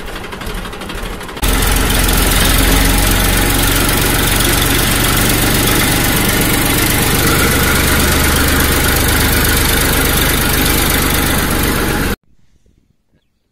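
A tractor engine running steadily with a low throb. It gets louder about a second and a half in and cuts off suddenly near the end.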